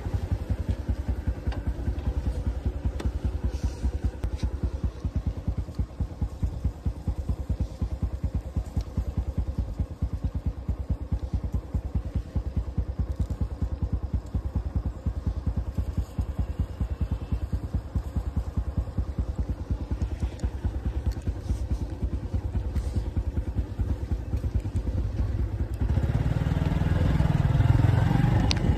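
Motorcycle engine running steadily with a rapid, even pulsing. It gets louder for the last few seconds, then drops away.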